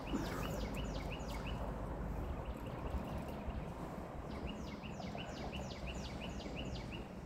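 A songbird singing two phrases, each a run of repeated clear down-slurred whistled notes at about four a second: one near the start and one about five seconds in, over steady low background noise.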